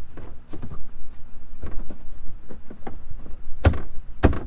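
Irregular knocks and scrapes as a foam bow wall is pushed and wedged into a plastic whitewater kayak's hull, with two loud thumps near the end.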